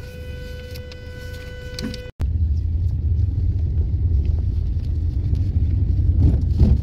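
Low rumble of a car's engine and road noise heard inside the cabin, much louder after an abrupt cut about two seconds in. Before the cut a faint steady high tone with overtones sits over the rumble.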